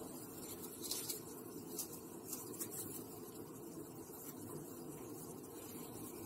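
Quiet, steady background hum with a few light clicks of metal kitchen tongs being handled, about a second in and again two to three seconds in.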